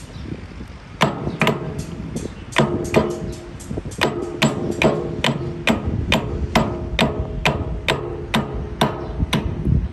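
Steady, repeated hammer blows on a metal part of the grass-cutting machine's gear shaft assembly, about two strikes a second, each ringing briefly.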